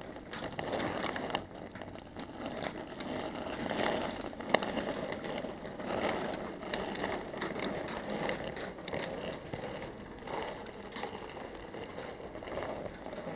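Model railway goods wagons rolling along the track, heard from a camera riding on the train: a steady rumble with scattered sharp clicks as the wheels run over rail joints and pointwork.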